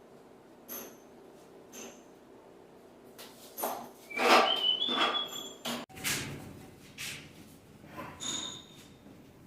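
Metal tools and engine parts clinking and tapping during engine assembly, several taps ringing briefly. A busier stretch of handling noise and a short squeak comes through the middle.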